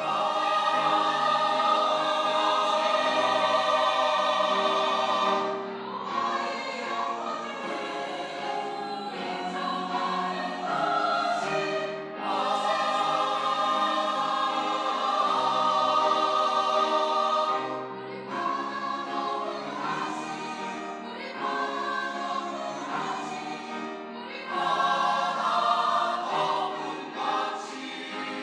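Church choir singing a hymn anthem in Korean, in long held phrases that swell louder three times.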